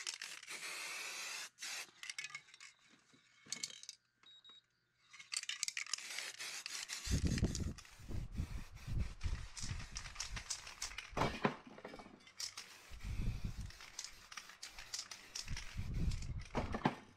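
Aerosol spray paint can spraying in repeated hissing bursts, a steady hiss in the first second or so, then a short pause, then dense spraying from about five seconds on, mixed with low thumps from about seven seconds.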